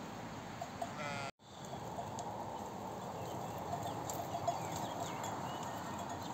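A sheep bleats once, a short wavering call about a second in; the sound then cuts out for a moment and is followed by a steady outdoor hiss with faint small ticks and high chirps.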